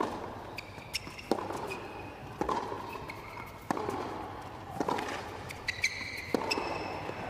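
A tennis rally on a hard court: the ball is struck by rackets six times at an even pace of about one shot every 1.2 seconds, each hit a sharp pop. Shoes squeak on the court between shots.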